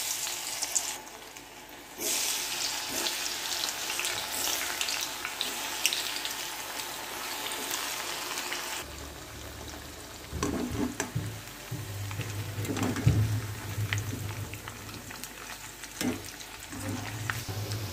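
Batter-coated cauliflower florets deep-frying in hot oil in a wok: a steady sizzle with scattered crackles.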